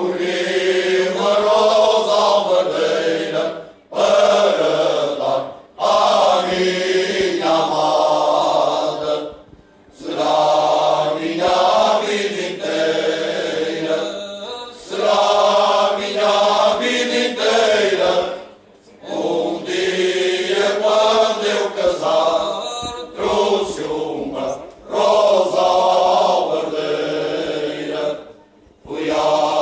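Male choir singing cante alentejano, a slow unaccompanied moda in several voices, phrase after phrase with short breaks for breath between them.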